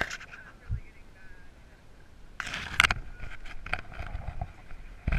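Handling noise from a camera strapped to a dog's back as the dog moves: fur and harness rubbing against the mount, with a loud burst of rustling about halfway through and scattered clicks from the metal leash clip and collar tag.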